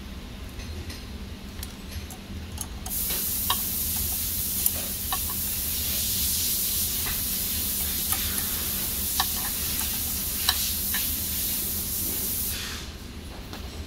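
A steady high hiss starts about three seconds in and stops shortly before the end, with a few sharp metallic clicks of a wrench and nuts being handled during the work on the motor mounting.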